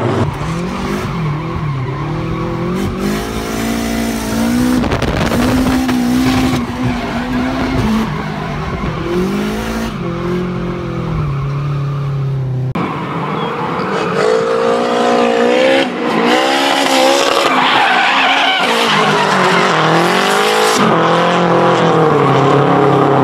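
Nissan S13 drift car's engine revving up and down repeatedly as the car drifts, with tyres skidding and squealing throughout.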